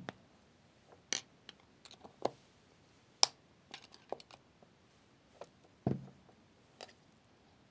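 Scattered light clicks and ticks of thin wire being wound around small nails on a string-art board and pressed into place with a needle, with a soft knock about six seconds in.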